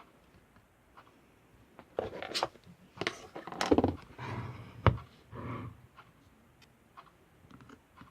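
Slime being squished and pressed by hand: a run of irregular squelching and clicking handling noises from about two to six seconds in, then a few faint clicks.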